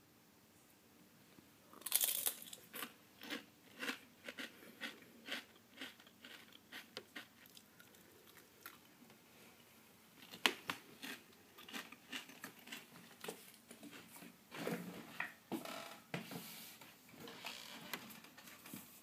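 Someone biting into and chewing kettle-cooked potato chips: a loud crisp bite about two seconds in, then a run of crunching chews, roughly one or two a second.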